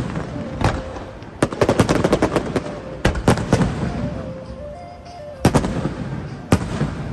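Fireworks bursting overhead: a quick run of sharp bangs a second or two in, then single bangs, two of them louder near the end. A faint melody of held notes plays underneath.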